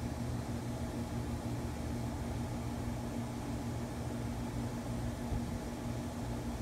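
Steady low machine hum with a few held low tones under an even hiss, unchanging throughout.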